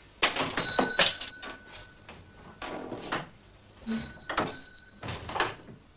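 Shop door being opened and shut, with a small door bell ringing twice, once about half a second in and again near four seconds in, amid knocks and rattles from the door.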